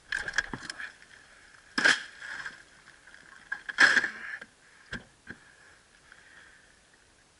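Knocks and clatter from a plastic ice chest as a caught redfish is put in among the fish and ice and the chest is handled: light clatter at the start, two loud knocks about two and four seconds in, then a couple of faint taps.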